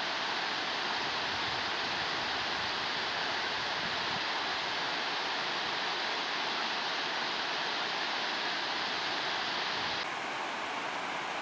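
Steady rushing of whitewater river rapids pouring over rocks on the James River.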